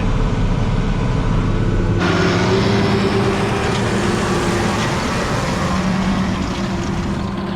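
Tractor engine running steadily under load while baling hay. About two seconds in the sound changes abruptly to a noisier mix with a different engine tone.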